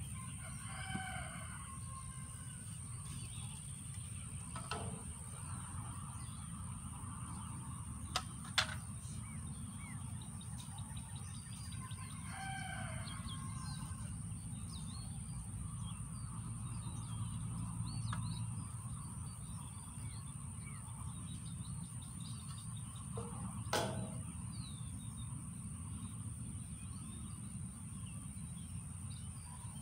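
Outdoor ambience of birds calling and chirping, with two longer calls about a second in and about twelve seconds in, over a steady low rumble and a constant high whine. A few sharp knocks come about eight seconds in and again near twenty-four seconds.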